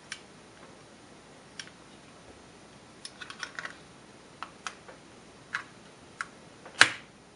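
Scattered small metal clicks and ticks of the tight handguard retainer lever on a Norinco MAK-90 AK rifle being pried up, irregular and sparse, with one louder click near the end.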